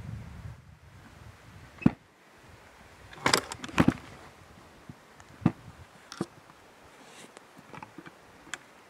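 Boots and a trekking pole on loose rock: irregular sharp knocks and scrapes of stone underfoot, the loudest a close pair about three and a half seconds in. A low wind rumble on the microphone at the start.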